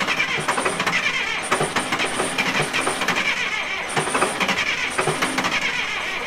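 RC model excavator running: a steady mechanical clatter with many quick clicks and short bursts of high hiss.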